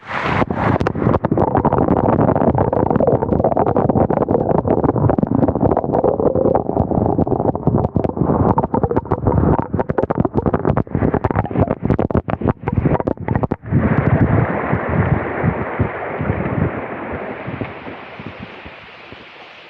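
Loud rushing, churning water close on the microphone, breaking up into rapid crackles for several seconds midway, then steadier and fading away near the end.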